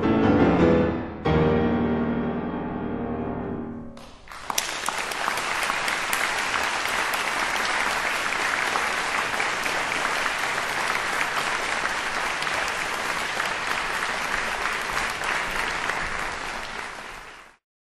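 Grand piano playing the closing chords of a piece, with a final chord struck about a second in and left to ring away. About four seconds in, audience applause breaks out and goes on evenly until it cuts off abruptly near the end.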